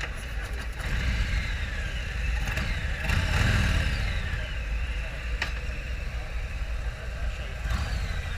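Harley-Davidson LiveWire electric motorcycles riding past, their high motor whine falling in pitch with each pass, several times over a steady low rumble and wind noise. One pass about three seconds in is the loudest, and a sharp click comes about halfway through.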